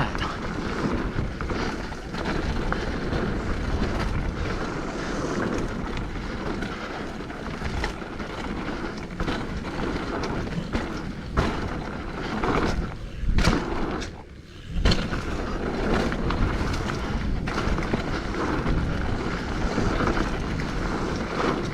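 Hardtail mountain bike riding down rough singletrack: continuous tyre and wind noise on the microphone, with the bike rattling and knocking over rocks and roots. About fourteen seconds in the noise drops away for a moment, then comes back with a thump.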